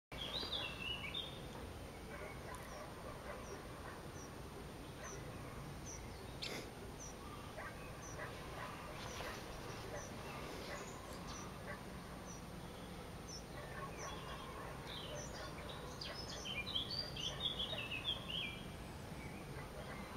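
Great spotted woodpecker nestlings calling from the nest hole: short high notes repeated every half second or so, with a louder burst of chattering calls near the end. The calls are begging for food.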